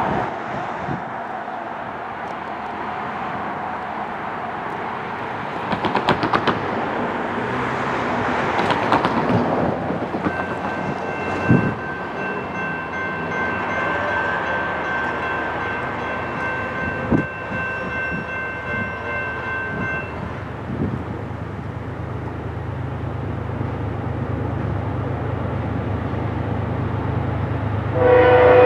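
Distant diesel locomotive horn on an approaching BNSF GE ES44AC grain train: a steady multi-note chord sounds for about ten seconds in the middle. A low engine rumble then builds as the train nears, and the horn blasts much louder right at the end. A few sharp knocks come in the first half.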